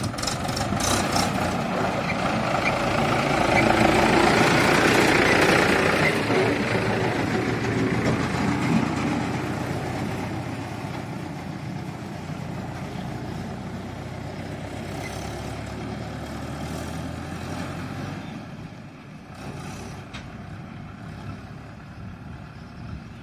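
Mahindra 585 DI tractor's four-cylinder diesel engine running under load as it hauls a fully loaded trolley. It grows louder as it passes, loudest about five seconds in, then fades slowly as it drives away.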